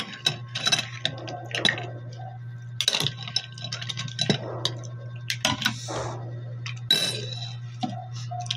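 Cooked mussel shells and a spoon clinking against a bowl and plate, a quick run of short knocks and clicks while the mussels are served and eaten, over a steady low hum.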